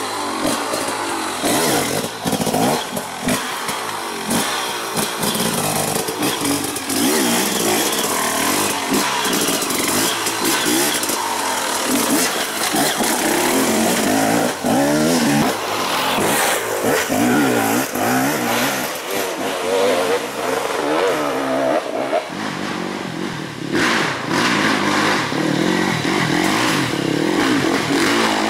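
Off-road dirt bike engines revving up and down in short bursts, the throttle blipped constantly over rough, rocky ground. About three-quarters of the way through, another bike takes over, climbing toward the listener.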